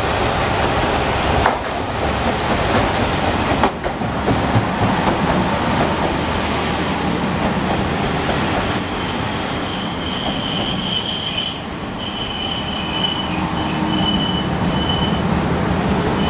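The Yufuin no Mori diesel limited express train pulling into the station: a steady rumble of engine and wheels on the rails with a few clicks, then, from about halfway through, a high-pitched squeal that comes and goes several times as the train brakes to a stop.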